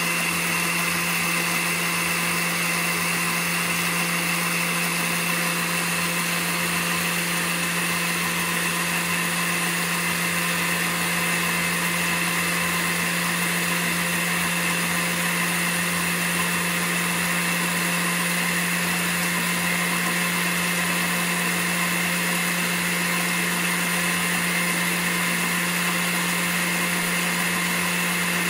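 Countertop blender motor running steadily at its slowest setting, a constant even hum, while olive oil is drizzled in to emulsify Caesar dressing.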